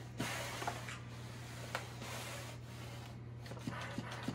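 Shark S1000WM steam mop running: a steady low hum with a hiss and rubbing as the mop pad is pushed over a concrete floor, with a few light clicks.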